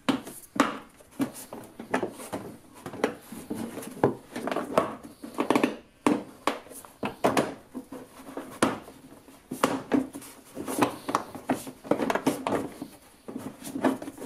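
Plastic wheel-arch liner being flexed and worked out from under a car's front wheel arch by hand: irregular knocks and scrapes of plastic against the arch.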